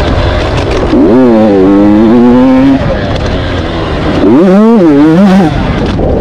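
Two-stroke KTM 85 motocross bike engine on hard throttle, revving up twice. The first rise comes about a second in and holds before dropping off. The second comes around four seconds, climbs, dips briefly and climbs again before falling away.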